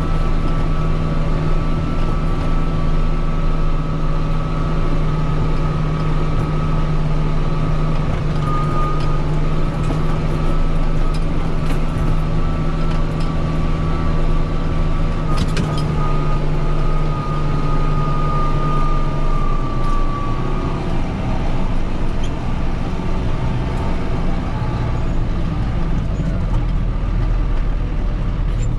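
Kubota M6040 tractor's four-cylinder diesel engine running steadily while it pushes snow, with a high steady whine over it. About twenty seconds in, the whine fades out and the engine note changes.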